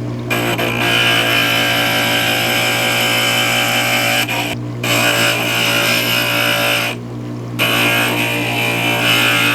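Inland glass grinder running, its wet diamond bit grinding the edge of a piece of glass plate with a harsh, ringing high whine over a steady motor hum. The grinding breaks off twice briefly, about four seconds in and again about seven seconds in, as the glass is lifted off the bit, while the motor keeps humming.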